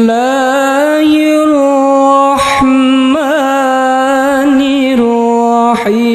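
A man reciting the Qur'an in the melodic tilawah style, holding long drawn-out vowels with a quick ornamental warble about three seconds in. The held notes are broken twice by short breaths, about two and a half seconds in and near the end.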